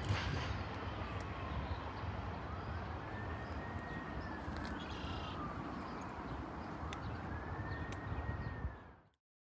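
A distant emergency-vehicle siren wails, slowly rising and falling about twice, over a steady low rumble of city and rail noise. The sound cuts off suddenly near the end.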